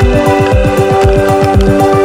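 Background electronic music with a fast, steady beat of deep falling bass kicks under held synth notes.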